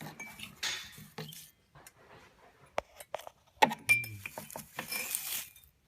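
Light metallic clinking and rattling of small hardware being handled, with several sharp clicks and brief scrapes.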